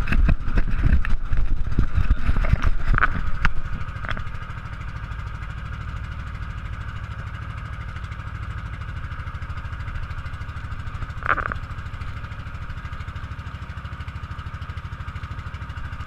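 Outrigger motorboat's engine running steadily under way: a constant low drone with a steady higher hum above it. A run of knocks and bumps comes in the first four seconds, and one brief louder sound about eleven seconds in.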